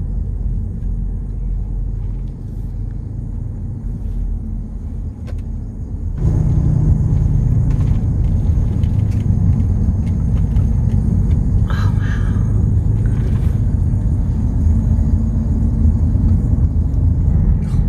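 Steady low rumble of a car driving, heard from inside the car, stepping up suddenly to a louder level about six seconds in.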